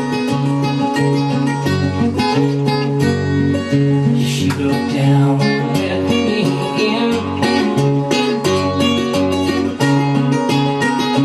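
Music with strummed acoustic guitar over a repeating bass line, played back through a vintage Pioneer SX-1980 stereo receiver and its speakers.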